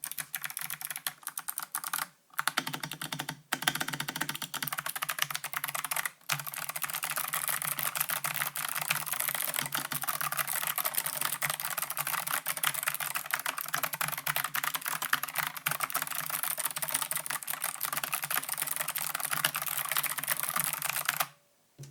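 Fast continuous typing on a Flesports MK870 mechanical keyboard with Kailh Box Pink clicky switches and MT3 keycaps: a dense stream of crisp clicks, with a few brief pauses in the first six seconds, stopping abruptly near the end.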